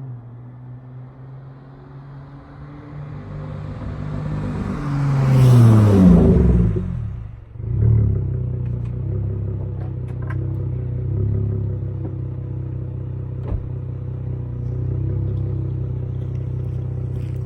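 Car engine and exhaust, with a loud swell and fade about five to seven seconds in as a vehicle goes by, its pitch sliding down. Then a steady low exhaust note from the Dodge Charger SXT's Flowmaster Outlaw exhaust.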